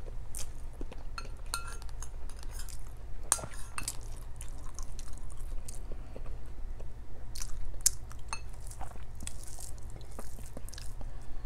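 Close-up eating sounds: a metal spoon clinking now and then against ceramic bowls and a plate, some clinks ringing briefly, with chewing in between, over a steady low hum.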